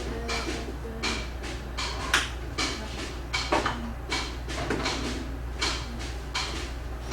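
A street brass band's percussion keeping a steady beat, about two sharp hits a second, with a held low brass note in the first second.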